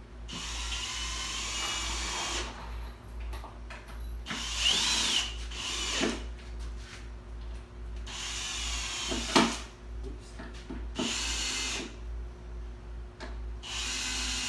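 Power drill running in about five short bursts of a second or two each, stopping and starting, while threaded inserts are fitted into the plenum box; a sharp click about nine seconds in.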